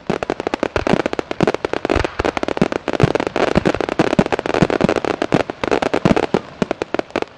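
Fireworks going off: a dense, irregular run of sharp cracks and pops, many each second.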